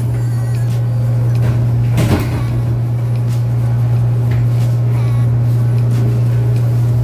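Steady low machine drone with a single knock about two seconds in and a few faint clicks.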